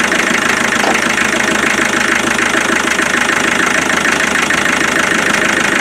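Land Rover Defender 90's 2.5-litre naturally aspirated four-cylinder diesel engine idling steadily, heard close up from under the bonnet.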